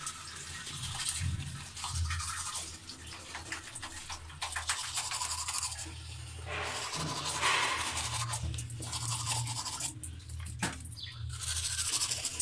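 Manual toothbrush scrubbing back and forth over teeth, in irregular brushing strokes.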